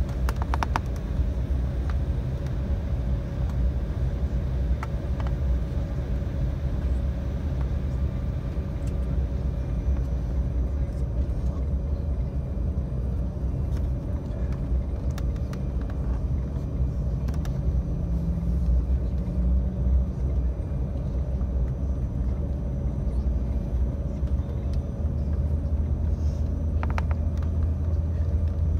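Steady low rumble inside the cabin of an Embraer 195 airliner, its GE CF34 jet engines running, with a faint steady tone and a few light clicks.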